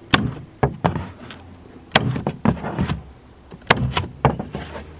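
Electric staple gun (tacker) firing repeatedly, stapling cardboard to wood: a series of sharp, irregularly spaced clacks, some with a short thud.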